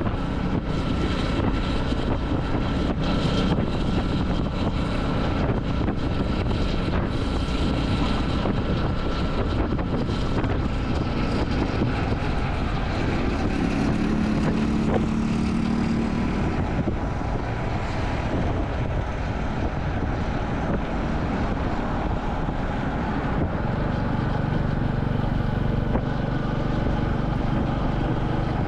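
Royal Enfield Classic 350's single-cylinder engine running on the move, mixed with rushing wind noise; the engine note rises and falls a couple of times as the speed changes.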